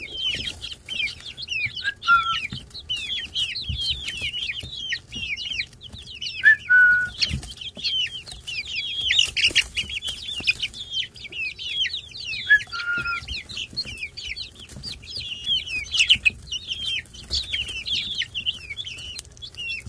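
A brood of young chicks peeping continuously, many short high chirps overlapping, with a lower drawn-out call three times, as they peck dried mealworms from a hand. A few faint taps from the pecking.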